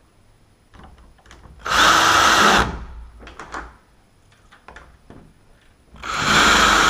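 A power drill running in two short bursts of about a second each, driving screws into the edge of a wooden door.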